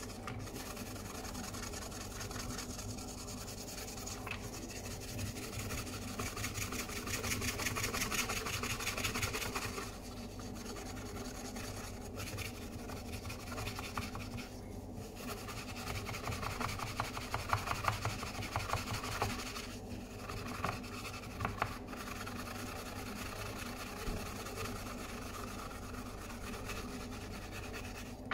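Soap-impregnated steel-wool pad (Svint) scrubbing rust off a straight razor blade in quick short back-and-forth strokes, with a few brief pauses and louder, harder scrubbing in the middle.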